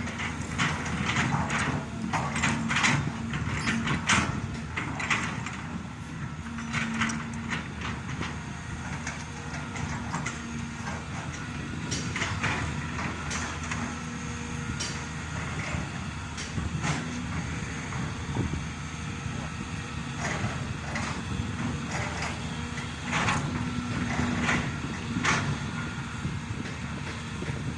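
Diesel engines of working excavators running steadily under load, with a low tone that comes and goes and repeated knocks and clanks.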